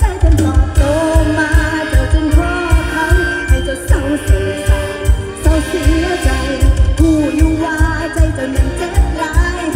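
Live Isan mor lam band music played loud through a concert PA: a heavy kick-drum beat pulses steadily under a wavering melody line.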